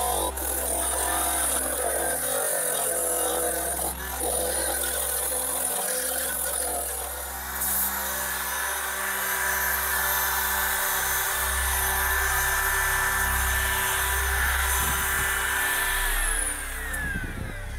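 Electric belt file sander (power finger file) grinding along the cut steel edge of a van's window opening: a steady whining, scraping run, with the motor winding down near the end. Background music plays under it.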